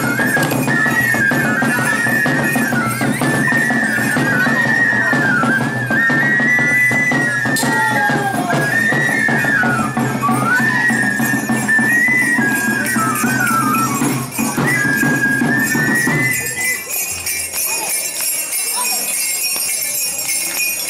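Traditional dance music: a wavering flute melody over a steady drum accompaniment, with small bells jingling. About 16 seconds in, the flute and drum stop and only the jingling and crowd noise go on.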